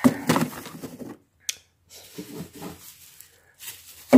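Plastic-wrapped frozen meat packages being pushed and shifted in a crowded freezer compartment: rustling, scraping and small clicks in short bursts, ending in a sharp knock.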